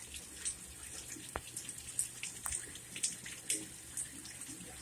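Heavy rain pouring down: a steady hiss with irregular sharp drips and splashes close by.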